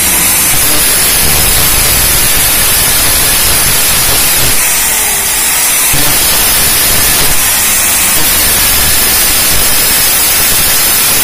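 Electric angle grinder with a cutting disc slicing through a small metal part from a Honda CB150R cylinder head: a loud, steady grinding hiss.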